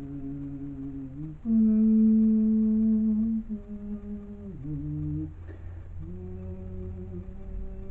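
A voice humming a slow melody in long held notes, each sliding briefly into the next; the loudest, highest note is held for about two seconds starting about a second and a half in.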